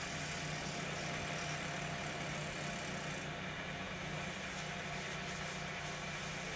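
A vehicle engine running steadily at a low hum, with a constant hiss above it.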